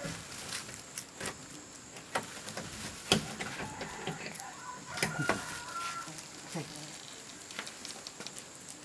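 Plastic carrier bag rustling and crinkling, heard as scattered light clicks, with a brief chicken call about five seconds in.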